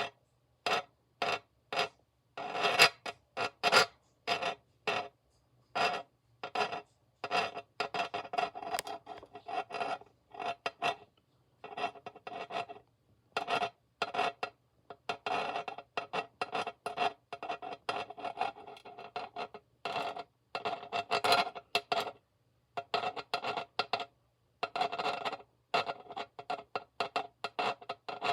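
Scratching in repeated rasping strokes: separate strokes about two a second at first, then longer runs of quick strokes broken by short pauses.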